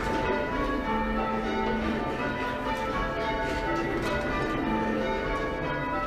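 Ring of six church bells being rung full-circle by a band, the bells striking one after another in a steady rolling sequence with their tones overlapping. The front five were cast by Thomas Mears in 1804, and the tenor of about 8½ cwt sounds around A-flat. They are heard from outside the tower, coming through its louvred openings.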